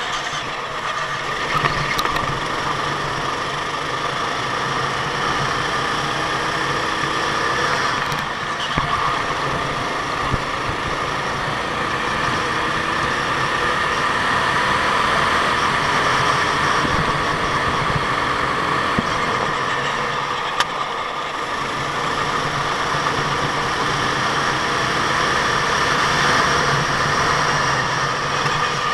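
Go-kart engine running continuously, its note shifting a little up and down, with a few brief clicks.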